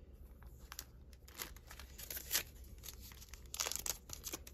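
Paper planner supplies being handled, rustling and crinkling in short scattered bursts, with a busier flurry near the end.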